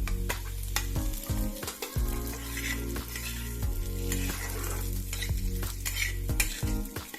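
Marinated chicken pieces sizzling as they fry in hot oil in a pan, stirred with a utensil that clicks and scrapes against the pan several times.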